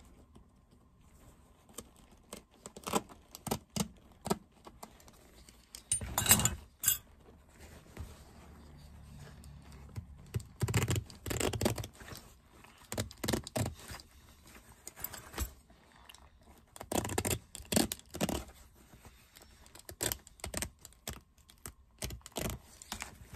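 Old stitches being cut and picked out of a leather jacket seam with a small hand tool: irregular small clicks and scratches, coming in clusters.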